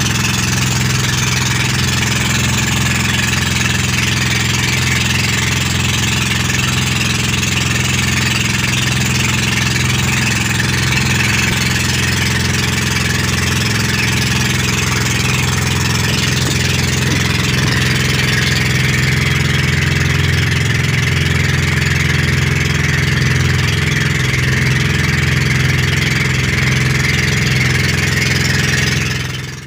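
Motorized outrigger boat (bangka) under way: its engine runs at a steady cruising speed, with a constant hiss of spray and wind over it.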